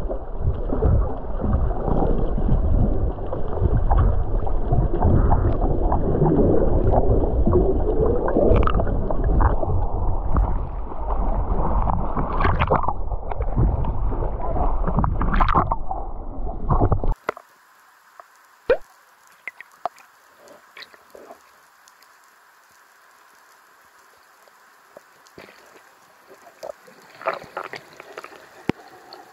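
Water gurgling and rushing over a GoPro's housing during a freediving session, loud and churning. After about 17 seconds it cuts abruptly to a much quieter underwater hush with scattered faint clicks.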